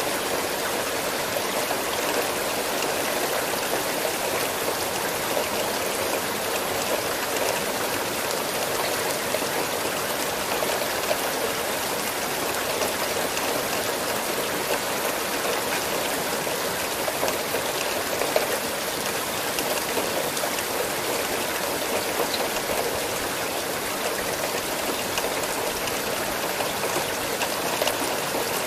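Steady rain falling, an even hiss with scattered drop ticks and no letup.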